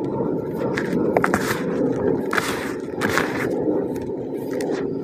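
Hands digging into and squeezing slightly damp, lumpy cement powder: a steady gritty rustling with a few sharper crunches.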